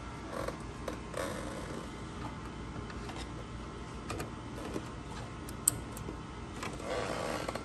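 Plastic clicks and scraping as ink cartridges are pushed into the cartridge slots of an HP DesignJet T120 printer, with one sharp click a little past the middle and a longer scrape near the end, over a faint steady hum.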